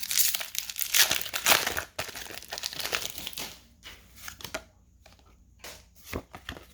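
Foil Pokémon booster pack wrapper crinkling as it is torn open, dense and loud for about three and a half seconds. Then only a few scattered light clicks and taps.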